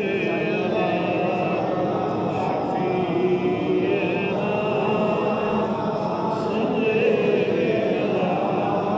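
A group of men chanting a devotional recitation together in unison, continuous, with held, wavering notes.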